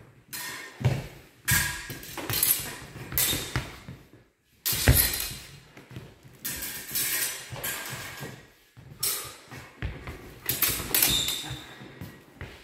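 Rapier fencing: a run of a dozen or so sharp scuffs and clatters from the fencers' footwork and steel blades, echoing in a large gym hall.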